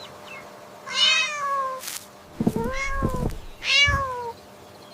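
Domestic cat meowing three times, each meow rising and then falling in pitch.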